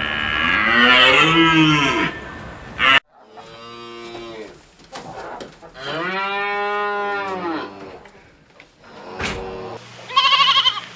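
Cattle mooing: several long, drawn-out moos, with an abrupt cut between them about three seconds in. A short quavering bleat starts near the end.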